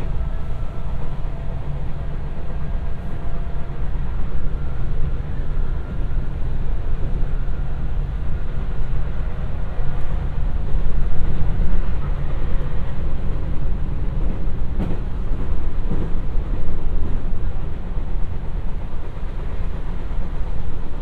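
Running noise of a JR West 221 series electric train, heard on board: a steady low rumble of wheels on rail with a faint motor whine, growing a little louder about ten seconds in.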